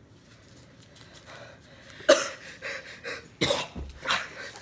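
A person coughing, three short, sharp coughs about a second apart.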